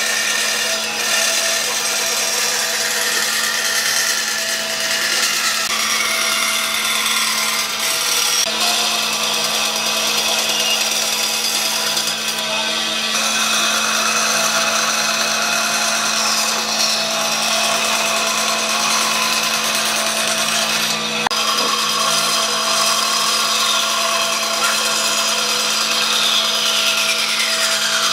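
Stationary band saw running steadily, its blade cutting through thick blocks of dried tree-stump wood, with a constant motor hum under the hiss of the cut.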